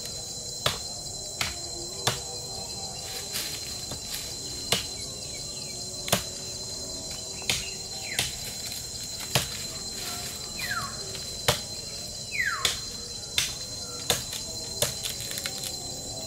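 Repeated sharp thuds of a long pole-handled digging tool jabbed down into the soil, roughly one strike a second, over a steady high insect chorus. Two short falling whistles sound about two-thirds of the way in.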